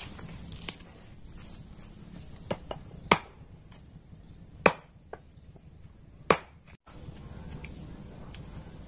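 Sharp chopping strikes of a blade into wood, irregularly spaced, the three loudest about a second and a half apart; they stop about two-thirds of the way through.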